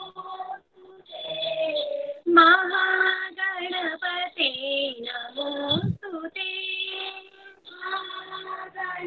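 A child singing a devotional song to Ganapati, solo, in held, wavering notes, with a short break about a second in. It comes through a video call's audio, thin and cut off at the top.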